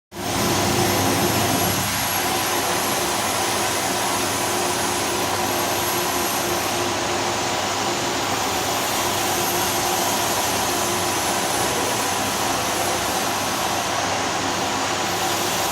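Steady machinery noise: a continuous hiss with a steady hum and a faint high whine running through it, unchanging throughout.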